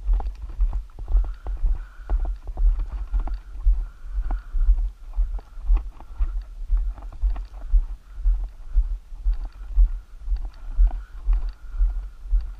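Footsteps of a person walking on a gravel dirt road, about two steps a second, each step jolting the body-worn camera into a heavy low thump.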